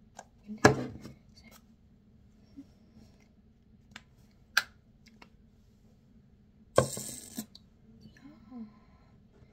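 A plastic skincare jar and its lid handled on a tabletop: a sharp knock about a second in, a lighter click around four and a half seconds, and a short scraping rustle near seven seconds.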